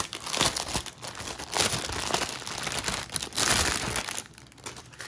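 Clear plastic bag crinkling and rustling as hands pull packets of diamond painting drills out of it, in irregular bursts that grow quieter about four seconds in.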